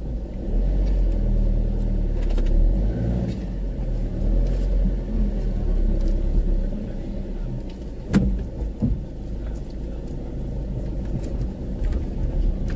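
Car on the move: engine running with low road rumble, and a single sharp knock about eight seconds in.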